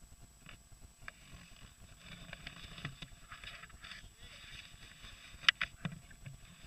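Faint ATV engine noise with a few sharp knocks and clicks, the loudest about five and a half seconds in, over a thin steady high whine.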